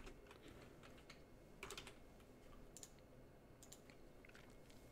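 A few faint clicks on a computer keyboard over near silence, the clearest a little under two seconds in.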